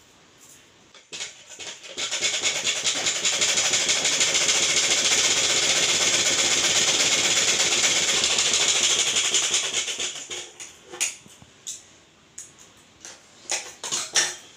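Sewing machine stitching a seam at a steady speed for about eight seconds, with a fast even needle rhythm, then stopping. Near the end come several short snips of scissors cutting fabric.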